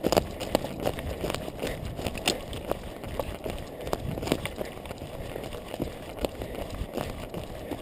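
Running footsteps through a forest floor of dry fallen branches, twigs and moss, about three footfalls a second, with twigs crackling underfoot; the hardest step lands right at the start.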